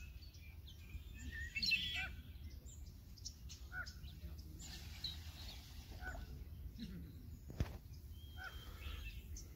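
Scattered short bird chirps and calls over a steady low background rumble, with a louder flurry of calls about two seconds in and a single sharp click past the middle.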